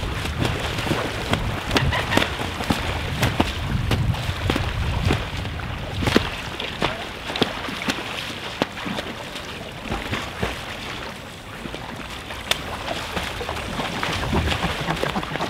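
Mute swans fighting in the water: irregular splashing and wing strokes slapping the surface. Wind rumbles on the microphone near the start and end.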